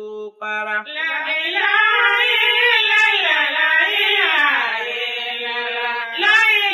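Islamic devotional chant: one voice singing long held notes that bend and waver in pitch.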